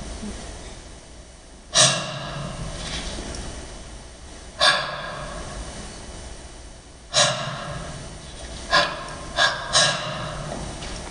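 Ringing pitched percussion strokes of Indian classical percussion. Three single strikes come about two and a half seconds apart, each tone dying away slowly, then three quicker strokes near the end. A deeper low tone sounds under several of them.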